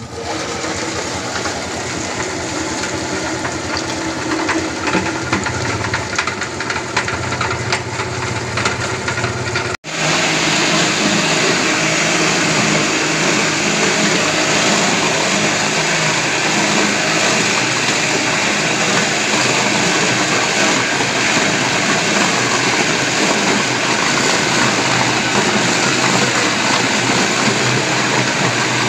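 Electric meat grinder running as chunks of beef and chicken are pushed into it, with a steady hum and scattered clicks. About ten seconds in, it gives way to the louder, even run of a bowl-cutter machine whose spinning bowl blends the ground meat with ice into meatball dough.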